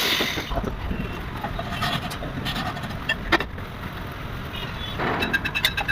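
Machine tool running with a steady low rumble, with scattered light metallic clicks and ticks during square-thread machining.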